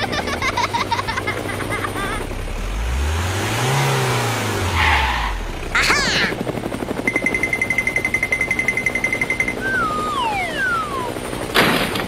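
Dubbed helicopter sound effect: a steady rapid rotor chop, with cartoon effects laid over it. A low swoosh rises and falls a few seconds in, a high beeping tone comes in later, two whistles slide downward near the end, and a short crash follows just before the end.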